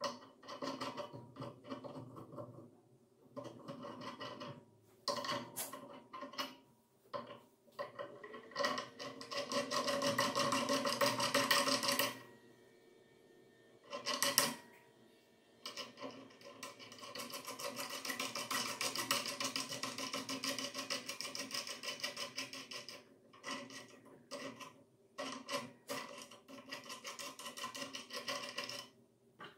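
Bolts being worked by hand into the holes of an angle grinder stand's swing arm: long stretches of metal rasping, one in the middle and a longer one later, with scattered clicks and taps between.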